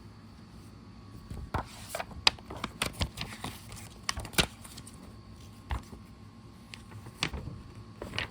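Pages of a paper catalog being handled and turned: a cluster of crisp crackles and clicks from about a second and a half in, then a few scattered ones.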